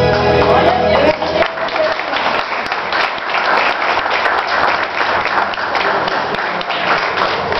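Music stops about a second in and gives way to an audience clapping and applauding.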